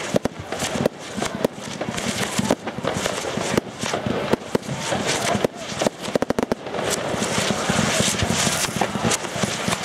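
Firework display: aerial shells going off one after another in sharp bangs, with a quick string of reports about six seconds in.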